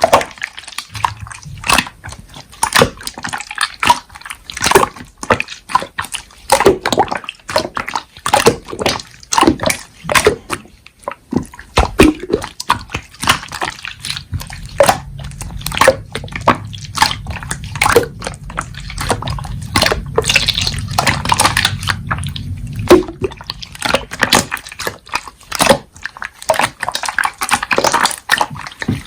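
Slime being squished and pressed by hand, making many irregular wet clicks and pops.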